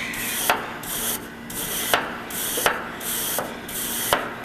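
A coil brush scrubbing the fins of a Hoshizaki ice machine's condenser coil in repeated back-and-forth strokes, a little over one a second. Each stroke is a hissing scrape with a small click as it reverses, loosening the dust and debris clogging the coil.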